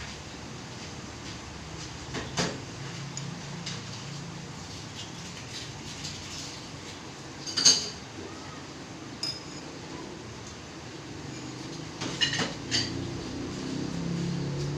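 Scattered clinks and knocks, like dishes and utensils being handled, with the loudest about eight seconds in and a short cluster of clinks near the end, over a steady low background.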